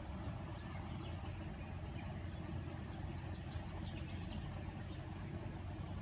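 Steady low outdoor rumble, with a few faint high chirps between about two and five seconds in.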